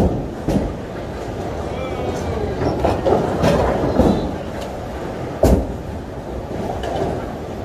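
Bowling alley din: bowling balls rolling down the lanes with a steady low rumble, and pins crashing several times, the sharpest crash about five and a half seconds in.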